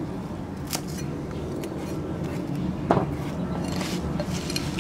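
Cleaver chopping leafy green stalks on a wooden chopping block: a few irregular sharp knocks, the loudest about three seconds in, over a steady low background noise.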